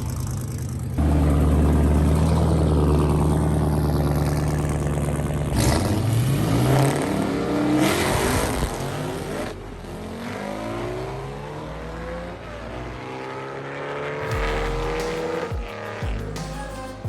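Drag-race car engine held at steady high revs, then launching and accelerating hard. Its pitch climbs repeatedly through the gear changes and fades as the car pulls away down the strip.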